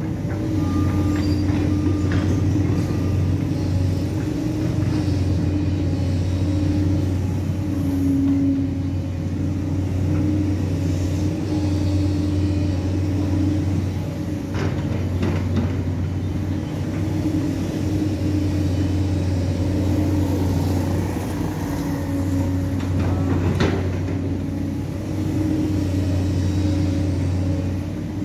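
JCB tracked excavator's diesel engine running steadily under load while it swings and works its boom, the pitch shifting slightly as the hydraulics take up the work. A couple of brief knocks come about halfway through and again near the end.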